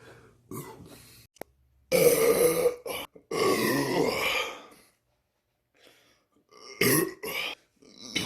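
A man burping loudly several times: a short burp under a second in, two long drawn-out burps around two and four seconds in, and a shorter burp near the end.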